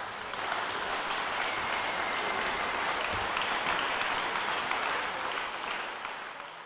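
Audience applauding in a concert hall just after a wind band finishes a piece. The applause is steady, then fades out near the end.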